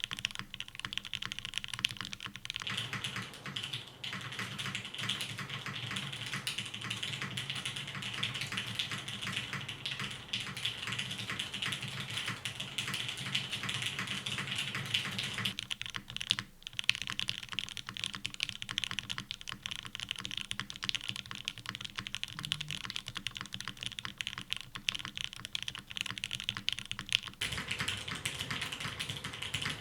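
Custom mechanical keyboard typed on fast and without pause, a dense stream of key clicks: Gateron Oil King linear switches lubed with Krytox 205g0, in an RBB case with a 2mm polycarbonate plate and GMK doubleshot keycaps.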